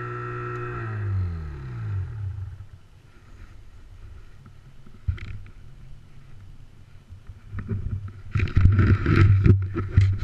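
Snowmobile engine running steadily, then falling in pitch as the throttle is let off and it winds down to a low idle. About eight seconds in, a loud rough rumbling and scraping noise sets in.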